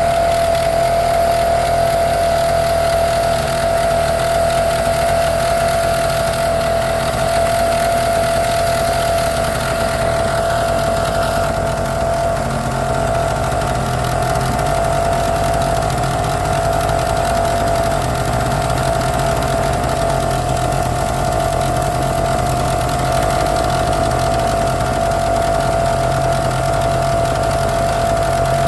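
Motorboat engine running steadily and loudly: a constant high whine over a low rumble.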